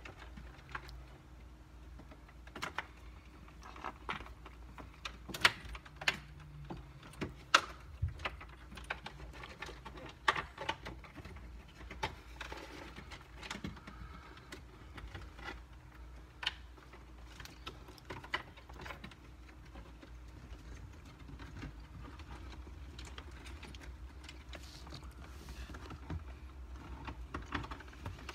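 Irregular clicks, taps and rattles of a wiring harness and plastic connectors being handled and routed behind a car dashboard, over a low steady hum.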